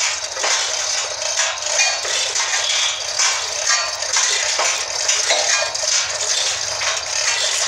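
Steel chain of a manual chain hoist rattling and clinking continuously as the hand chain is hauled to lift a heavy log, with short metallic ringing clinks among the clatter.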